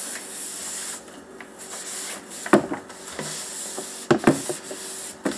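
A rag wiping and scrubbing the inside of a refrigerator, a scratchy rubbing hiss that comes and goes. A few sharp knocks, the loudest sounds here, come about two and a half seconds in, twice near four seconds and once near the end, as things bump against the fridge's shelves and walls.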